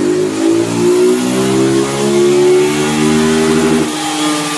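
Honda CG 160 single-cylinder engine, bored out with a 190 kit and breathing through its stock exhaust, pulling at full throttle in fifth gear on a chassis dynamometer, its pitch rising slowly as speed builds. A little before the end the throttle closes and the revs begin to fall.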